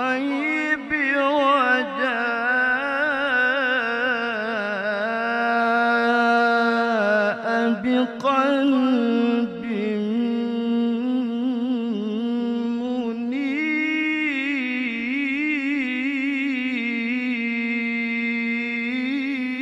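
A male qari's voice in melodic Quran recitation, drawing out long, ornamented notes with a wavering vibrato, with a couple of short breaks about eight seconds in.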